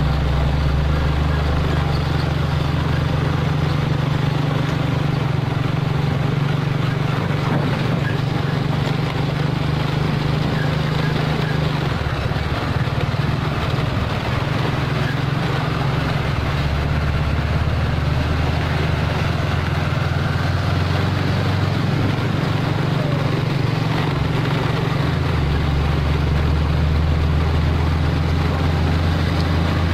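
Mitsubishi Fuso 220PS truck's diesel engine running on the road as it hauls an excavator, with steady road and wind noise. The engine note shifts about twelve seconds in and again near the end.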